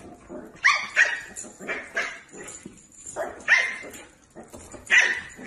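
Dog barking in a string of short, high-pitched yaps, loudest about a second in, again midway and near the end.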